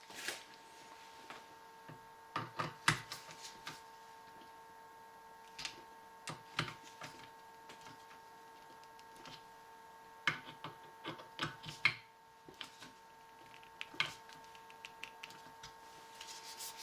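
Irregular small clicks and clacks of hand tools and metal parts being handled while the muzzle brake is tightened on the rifle barrel, coming in short clusters a few seconds apart. A faint steady hum runs underneath.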